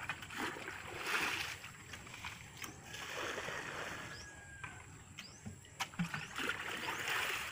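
Muddy water splashing and pouring as a bucket bails a shallow drained fish-pond channel, in three bursts of about a second each.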